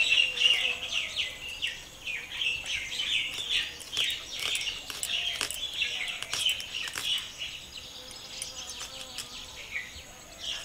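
Small birds chirping continuously in quick, short, falling chirps, over a faint steady insect drone. Scattered crisp clicks come from an onion being sliced against the blade of a boti.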